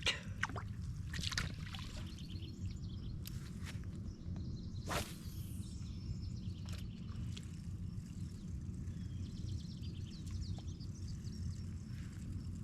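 Outdoor ambience: a steady low rumble, with a few sharp clicks in the first second or two and a brief swish about five seconds in.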